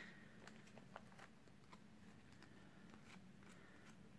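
Near silence, with a few faint ticks of trading cards being handled.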